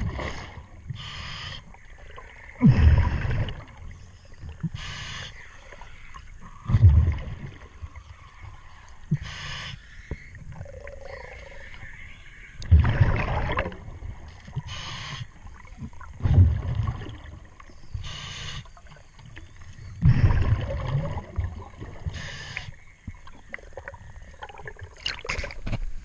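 A diver breathing through a regulator underwater: a short hissing inhale, then a loud rush of exhaled bubbles, repeating about every four seconds.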